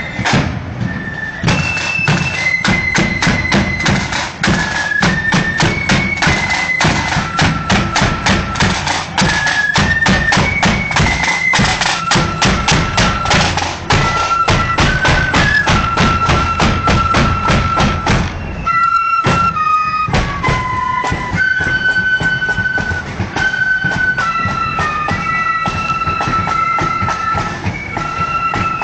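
Marching flute band playing: a high flute melody over loud, dense snare and bass drumming. About nineteen seconds in, the drums and tune break off briefly, then the flutes carry on over lighter drumming.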